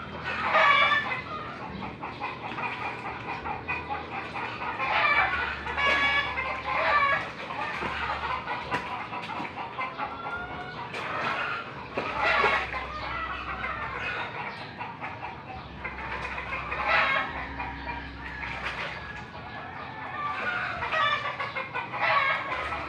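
Chickens clucking and a rooster crowing, in bouts every few seconds.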